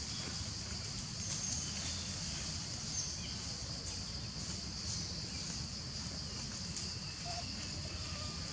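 Steady high-pitched drone of forest insects over a low background rumble, with a few faint short chirps.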